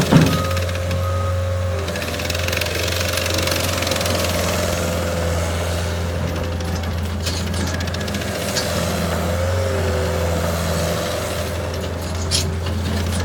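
Cat 277B tracked skid steer loader's turbo diesel engine running steadily, with a constant low hum and a few brief clicks or rattles.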